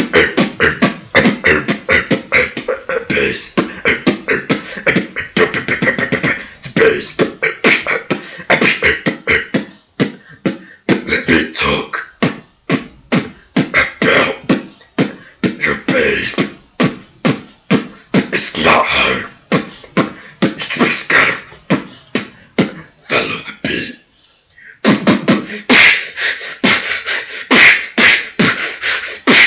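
Freestyle beatboxing: a fast, steady run of mouth-made kick, snare and hi-hat sounds produced into a cupped hand, with one short break near the end before the beat picks up again.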